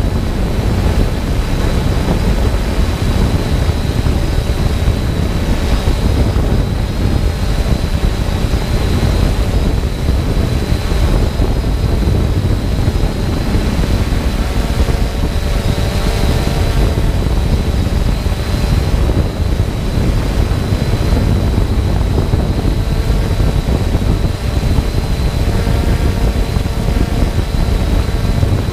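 Multirotor drone's motors and propellers whirring steadily as it hovers, heard through its onboard camera, with a faint steady high whine over a heavy rush of wind noise on the microphone.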